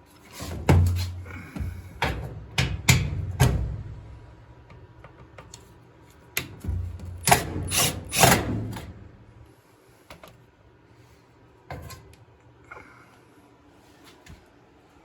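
Screws being backed out of a GE dryer's rear terminal-block access panel: a clatter of sharp metallic knocks and scrapes from the tool and the sheet-metal panel, in two bursts, the second starting about six seconds in, followed by a few faint ticks.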